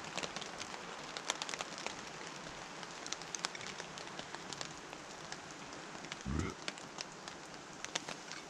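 Steak sizzling and spitting in a frying pan on a gas camping stove: a steady crackling hiss dotted with sharp pops. A short low voice sound about six seconds in.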